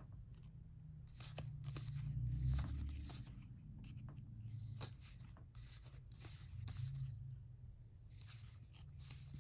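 Stiff cardboard board-game cards being leafed through by hand: soft slides and flicks as cards are pushed off one another, one after another, over a low rumble.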